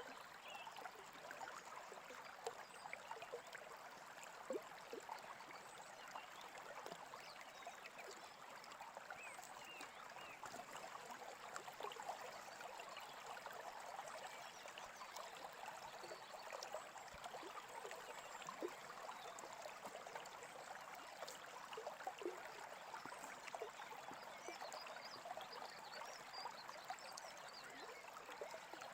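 Small stream babbling and trickling steadily over stones, faint.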